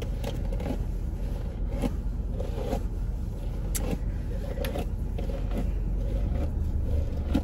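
Paddle brush dragged in repeated strokes through thick, dry, tangled natural hair, detangling it before washing. Under it runs a steady low rumble from the idling car.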